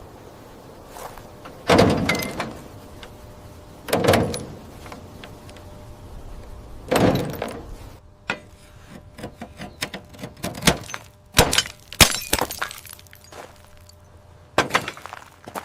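A series of knocks and impacts: three heavier thuds a few seconds apart, each with a short ring, then a quick, uneven run of sharp clicks and knocks.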